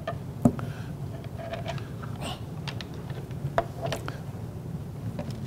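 Handling of a Bible at a pulpit microphone: a few sharp clicks and soft taps, the loudest about half a second in and another about three and a half seconds in, over a low steady hum.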